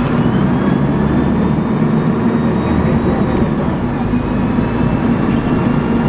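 Alexander ALX300 single-decker bus heard from inside while under way: a steady engine drone and road noise, with the high whine of its Voith automatic gearbox, the 'hoover' sound, rising over the first second, holding, then dropping about four seconds in.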